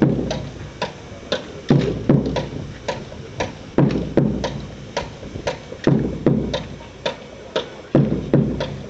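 A slow drum cadence: a heavy bass-drum beat about every two seconds, with several sharp, lighter taps between each beat, setting the time for the recruits' rifle drill.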